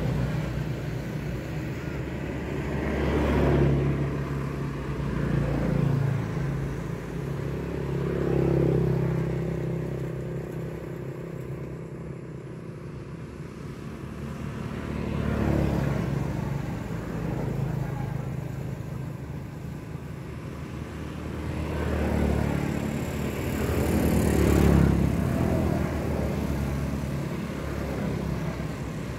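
Motor vehicle engine noise: a steady low engine hum, with vehicles passing that swell and fade about six times.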